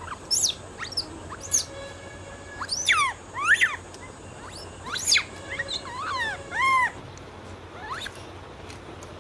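Birds calling: a run of sharp chirps that sweep steeply downward in pitch, along with short arched whistles, coming in quick groups for about eight seconds and then stopping.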